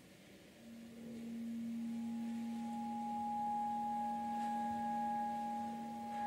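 Electroacoustic music for clarinet and tape: soft, pure held tones stacking up. A low tone starts about half a second in, a higher one joins near two seconds and a fainter, higher one after that, all held steady.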